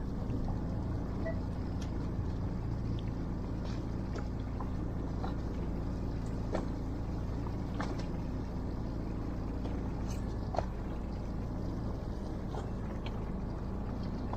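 A fishing boat's engine running with a steady, even hum, with a few faint light clicks scattered through it.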